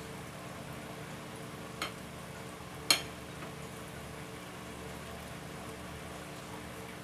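Two sharp clinks of metal cutlery against a plate about a second apart, the second much louder, over a steady low hum.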